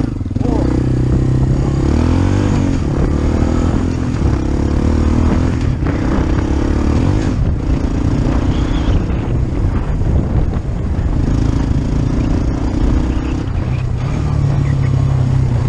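Kawasaki Bayou 300 4x4 quad's single-cylinder four-stroke engine running under way as it is ridden, the engine note rising and falling several times with the throttle.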